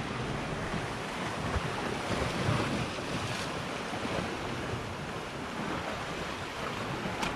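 Sea surf washing against a rocky shoreline, a steady rushing, mixed with wind buffeting the microphone.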